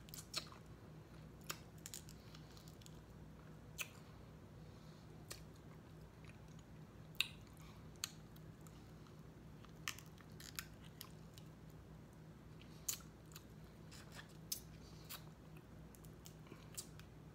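Snow crab legs being eaten up close: faint chewing with about a dozen scattered sharp clicks and cracks from shell and mouth, the loudest about midway, over a steady low hum.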